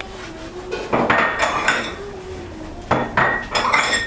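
Dishes and metal utensils clattering and clinking, with short ringing tones after the knocks, in two bunches about a second in and about three seconds in.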